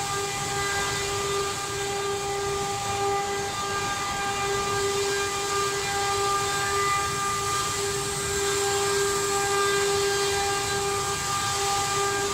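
CNC wood router running: the spindle gives a steady high whine with overtones, over a constant cutting hiss.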